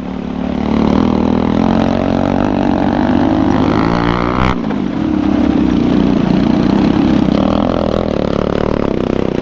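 Motorcycle engine running under load on rough ground, its pitch rising and falling as it revs, with one sudden knock about four and a half seconds in.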